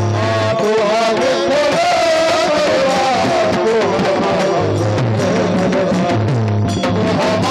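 Live Varkari bhajan music: drum accompaniment under a melody line that bends and wavers with ornaments, over a low steady drone that drops out about half a second in and returns a little past the middle.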